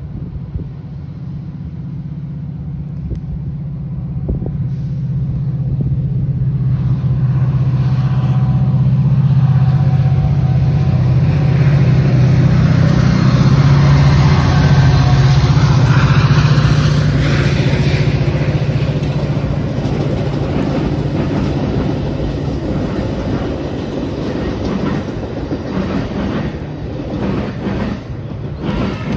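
Metra diesel commuter train passing close by: the locomotive's low engine drone and the rush of the train along the rails build up, are loudest around the middle, then fade as it goes by.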